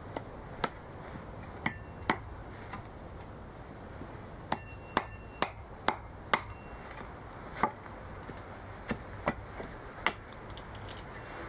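Carving hatchet chopping into a green cherry plum spoon blank braced on a chopping block: a string of sharp, irregularly spaced chops, with a quicker run of about two a second in the middle and a flurry of lighter strokes near the end.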